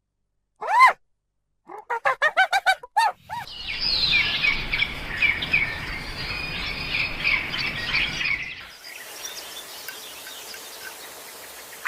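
A few short rising-and-falling calls, a quick run of them about two seconds in, then a dense chorus of bird chirps from about three and a half seconds in that drops to a faint hiss with scattered chirps near nine seconds.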